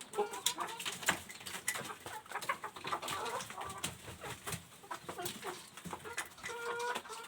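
Desi chickens clucking, several short calls overlapping, mixed with many sharp clicks and taps.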